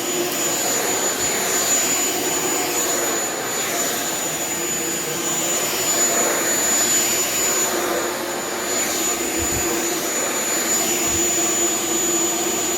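Shark Vertex HZ2002 corded stick vacuum running steadily: a constant airflow rush with a thin, steady high motor whine and a lower hum underneath.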